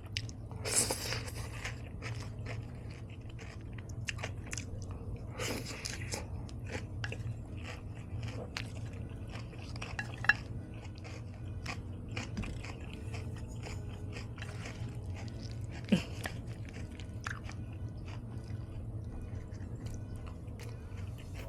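Close-miked chewing of crunchy salad on pita: two loud crunching bites, about one second in and about five and a half seconds in, then steady moist chewing with many small clicks and two sharper clicks.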